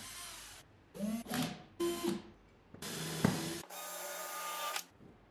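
Cordless drill running in several short bursts that start and stop abruptly: first spinning a scrub brush against a wooden surface, then drilling into a block of wood.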